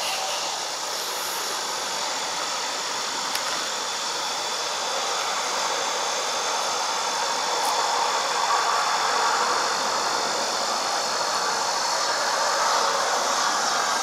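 Steady city ambience: a constant wash of distant traffic noise, swelling a little around the middle and again near the end, with faint steady high tones over it.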